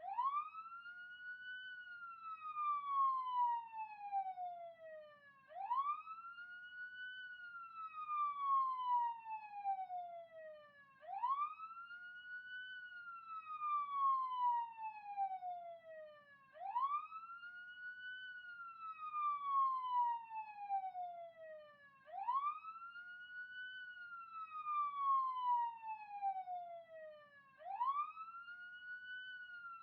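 Police siren wailing: a tone that rises quickly, then falls slowly, repeating about every five and a half seconds.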